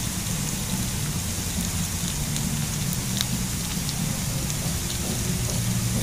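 Moringa-leaf fritters sizzling steadily in hot oil in a small pan, with scattered sharp pops, over a low steady drone.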